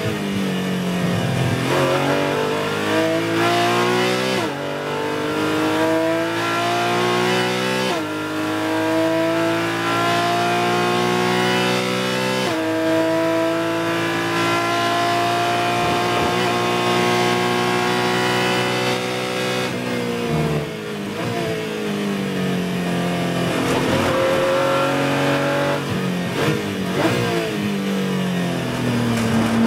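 Porsche 718 Cayman GT4 Clubsport's naturally aspirated 3.8-litre flat-six, heard from inside the cockpit at full throttle. It pulls up through the gears from second to fifth, with three quick upshifts that each drop the pitch. From about twenty seconds in it falls away under braking, with a run of throttle-blipped downshifts, and it climbs again near the end.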